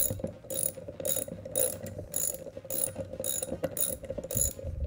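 Hand ratchet (3/8-inch drive with a 3/4-inch socket) clicking in repeated short strokes, about two a second, as it backs out the shoulder bolt on a Vacuflush vacuum pump.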